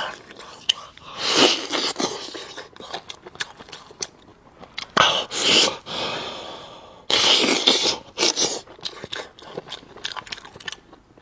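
Close-miked eating: a person biting and chewing food, with many small wet mouth clicks and three louder bursts of chewing noise, about a second in, around five seconds and around seven seconds.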